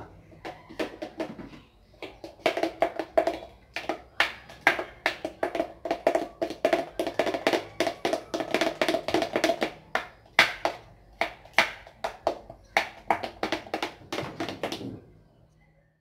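Batter being stirred by hand inside a blender jug, the utensil knocking and clinking against the jug in quick, irregular strokes, several a second; it is baking powder being mixed in without running the blender. The stirring stops about a second before the end.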